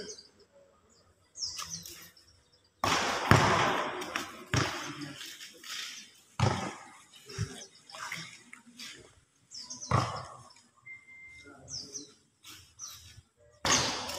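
Basketball in play on a concrete court under a metal roof: several sudden bangs and thuds, each ringing out briefly. Voices call out, and small birds chirp now and then.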